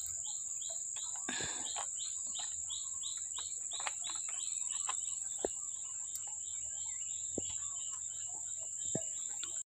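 Tropical insect chorus: a steady high-pitched drone, with a short chirp repeating about three times a second over it.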